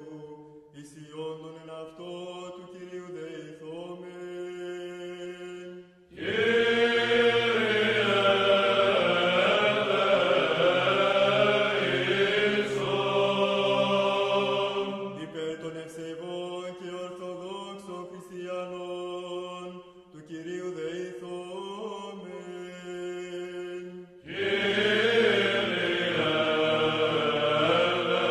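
Orthodox liturgical chant. A softer sung passage gives way about six seconds in to a fuller, louder group of singers, drops back around fifteen seconds, and swells again after about twenty-four seconds.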